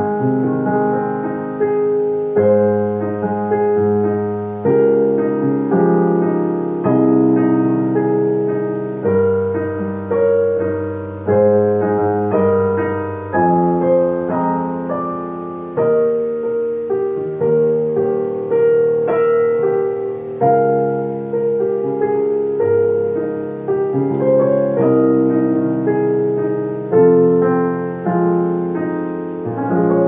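Dexibell VIVO H3 digital piano playing its modelled acoustic-piano sound through its own built-in speakers. An unhurried piece of chords and melody, each chord struck and left to ring and fade before the next one.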